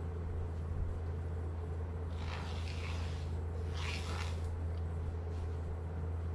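Pencil scratching along a steel straightedge on a wooden guitar top: two short strokes, about two and four seconds in, over a steady low hum.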